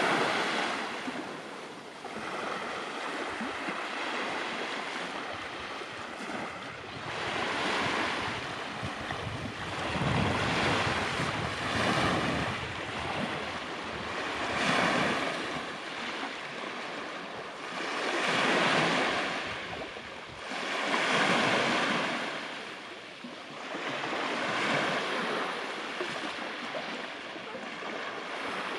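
Sea surf breaking and washing on the beach, swelling and fading every few seconds.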